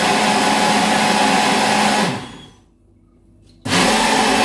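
Personal blender running on a green smoothie at a steady pitch, switched off about two seconds in and winding down, then switched on again about a second and a half later. It is being run in bursts to blend the smoothie smooth.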